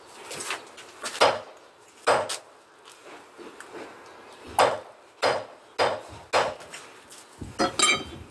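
Steel bricklaying trowel knocking and scraping on concrete blocks: about eight sharp, irregular knocks, some with a short metallic ring.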